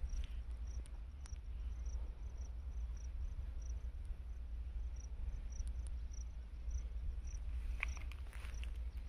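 A cricket chirping steadily, short high-pitched chirps at about three a second, over a low steady rumble. A few brief crackles come near the end.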